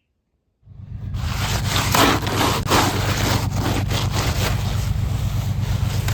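Wind buffeting the microphone in a steady low rumble, starting abruptly about half a second in, with irregular rough crunching noises over it.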